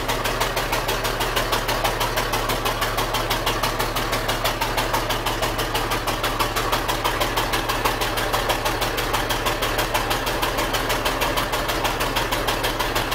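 Engine of a 1929 Ahrens-Fox fire engine running steadily at a constant speed, with an even beat of firing pulses.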